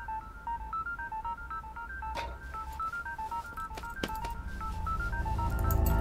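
A fast, unbroken run of touch-tone dialing beeps, about five a second, each beep a pair of tones. A couple of sharp knocks come at about two and four seconds in, and a low drone swells up under the beeps near the end.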